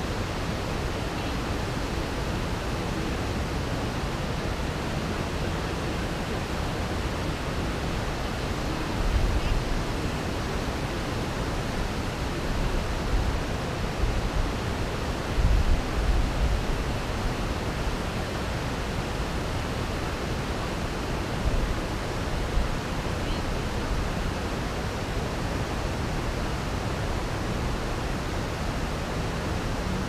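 A steady rushing noise, with a few low rumbling swells around the middle.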